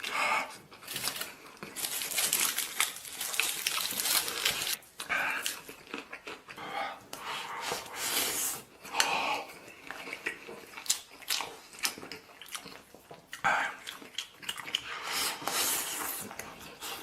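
Close-up sounds of a person eating stew: chewing and biting in irregular bursts.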